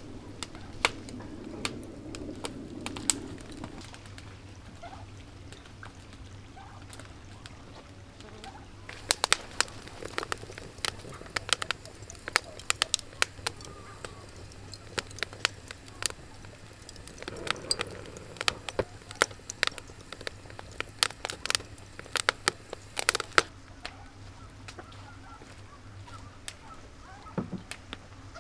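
Wood fire crackling under a cast-iron skillet, with sharp irregular pops. The pops come thick from about nine seconds in and thin out near the end.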